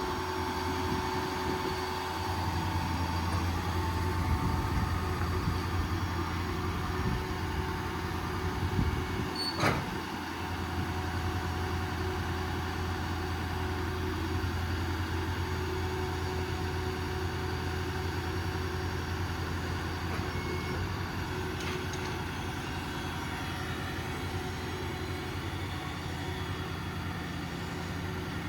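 Ford 6.7 L diesel running steadily to power the Stellar 7621 crane's hydraulics, with a faint hydraulic whine as the boom is worked at full speed. A single sharp knock about ten seconds in, after which the drone carries on.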